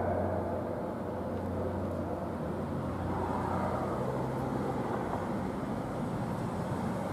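Steady road traffic, with the low hum of passing vehicle engines.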